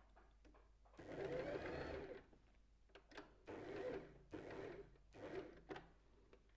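Domestic sewing machine stitching a zigzag seam in stop-start runs: one run of about a second, then four shorter bursts.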